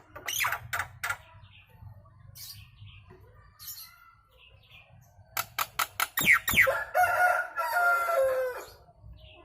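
Nias hill myna calling: a few sharp clicks and short chirps, then, about five seconds in, a quick run of sharp notes with falling whistles that leads into one long drawn-out call lasting about two seconds, dropping in pitch at its end.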